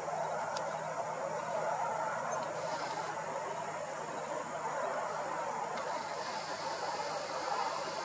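Steady outdoor ambience of distant traffic and insects: an even rushing noise with a faint low hum underneath.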